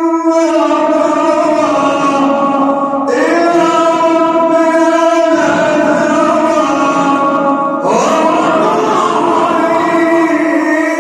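A man's voice reciting the Quran in the melodic tajweed style, drawing out long held notes. The pitch slides up into a new phrase about three seconds in and again near eight seconds.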